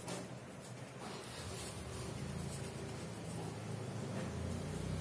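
Felt-tip sketch pen scratching on paper as a couple of words are written out by hand.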